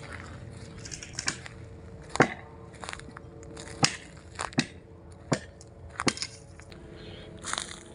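Dry branches of a fallen pine cracking and snapping: about nine sharp, irregularly spaced cracks, the loudest about two seconds in and near four seconds, with brush rustling between.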